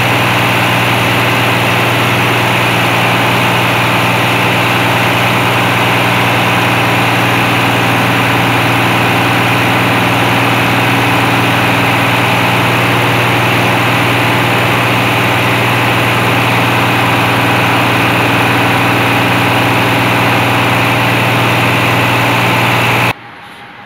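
Engine running steadily on a dynamometer test bed, with a strong steady low hum. Its blow-by is being checked on an air flowmeter; the builder calls its sound excellent and says it shows no blow-by. The sound cuts off suddenly just before the end.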